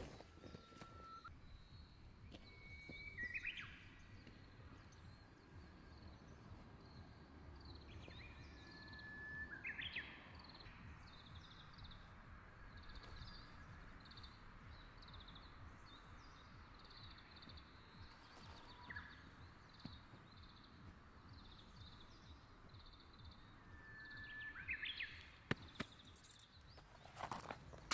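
Songbirds singing faintly: a clear whistled note ending in a quick rising flourish, repeated every few seconds, over a long run of soft rapid chirps.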